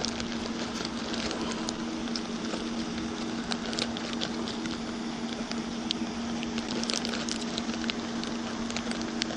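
Irregular small clicks and taps, typical of rummaging through fishing tackle, over a steady hum and hiss.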